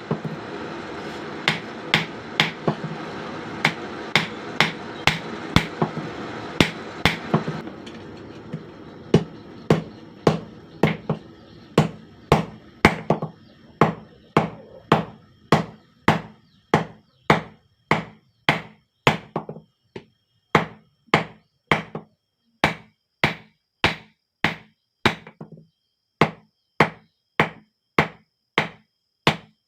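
Hand hammer striking steel from a used spring on an anvil in a steady rhythm, about one and a half blows a second, each with a short metallic ring. A steady rushing noise runs under the first eight seconds or so, then stops.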